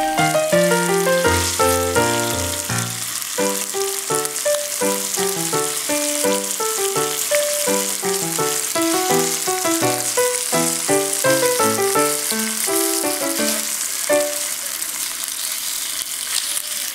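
Sliced meat sizzling steadily in a small frying pan over a camping gas burner, under background music made of a quick run of short melodic notes.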